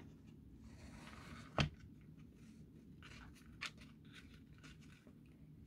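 Faint rustling of hands threading twine through a hole in a wooden plaque frame, with one sharp click about a second and a half in and a smaller one a couple of seconds later.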